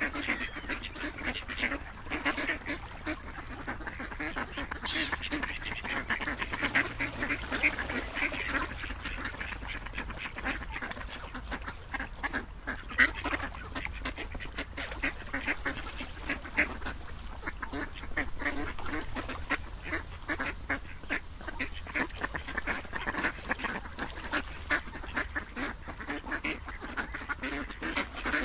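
Ducks quacking, many short calls overlapping in a steady stream.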